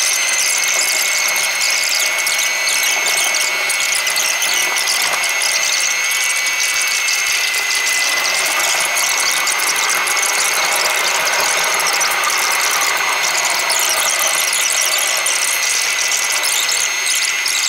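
IAE V2522-A5 turbofan engines of an Airbus A319 running at taxi idle, heard through the cabin window: a steady rush with a steady high-pitched whine.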